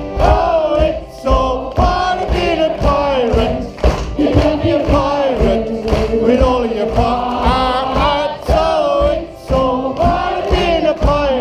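Group of voices singing a comic pirate song together, accompanied by strummed acoustic guitar and accordion.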